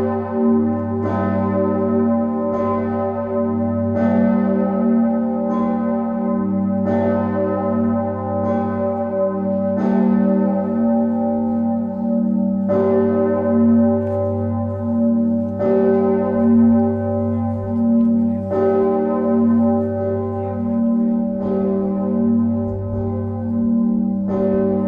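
Bell 1 'Osanna' of Leipzig's Nikolaikirche, a church bell tuned to g°, swinging and ringing alone. Its clapper strikes about every second and a half, and a deep hum rings on between the strokes.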